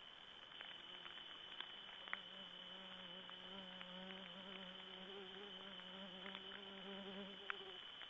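A flying insect buzzing close to the microphone: a faint, low, wavering hum that swells about two seconds in and stops shortly before the end.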